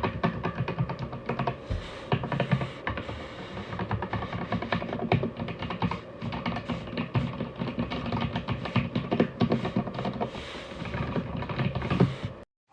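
Rapid typing on a Darkflash GD100 mechanical keyboard, dense overlapping keystroke clicks, over background music. Both cut off suddenly near the end.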